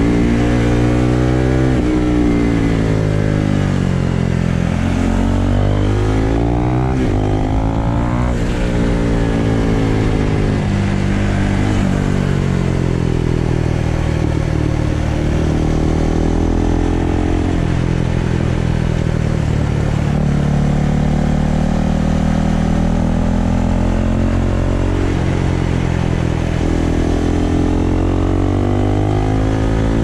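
Husqvarna Vitpilen 401's single-cylinder engine running under way, its pitch repeatedly climbing as it accelerates and then dropping or falling away as the throttle is changed through the bends.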